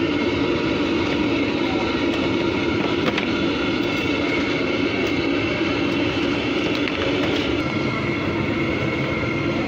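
Steady roar of a large open burner firing under a big kadhai, with the hiss of pooris deep-frying in the oil.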